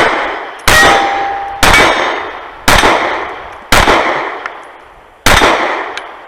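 A string of pistol shots at steel targets, roughly one a second, each followed by the ring of a steel plate. Five shots fall well inside, with one more just at the start and another at the very end.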